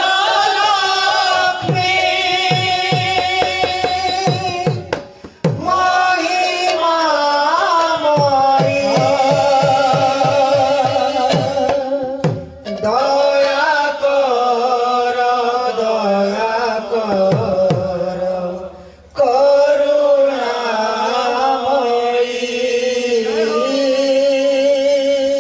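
Male voices singing a devotional kirtan in long held notes with a wavering pitch, over a hand drum whose low strokes slide down in pitch. The singing breaks off briefly twice.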